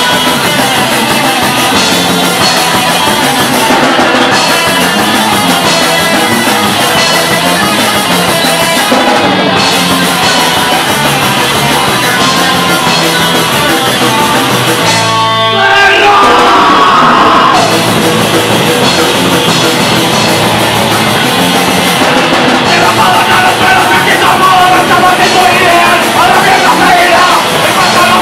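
Punk band playing live: distorted electric guitar, bass and drum kit with singing, loud throughout. About halfway through there is a brief break, then the full band comes back in.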